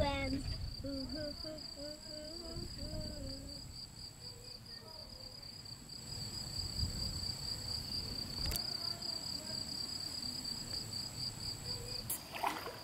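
Insects trilling steadily in the grass, a high, even pulsing buzz.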